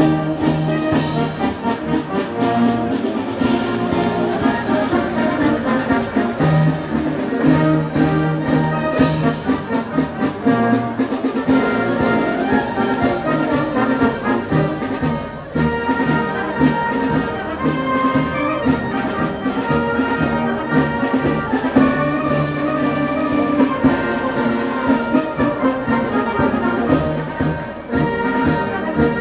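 Brass marching band playing: tubas, trombones and trumpets over snare drums.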